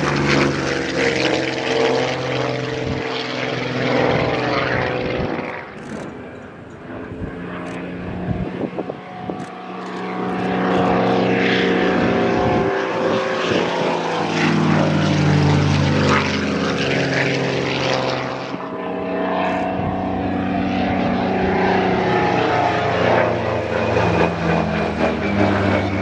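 Pilatus P-3 trainer's piston engine and propeller running through a display pass, the pitch sliding up and down as it passes. The sound fades for a few seconds near the middle, then builds again.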